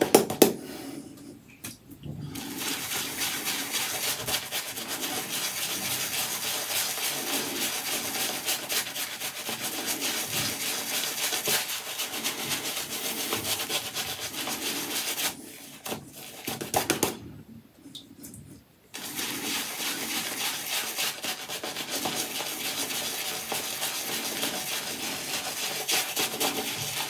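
Shaving brush working soap lather over a stubbled face: a steady wet, bristly scrubbing. It stops briefly near the start and again a little past the middle.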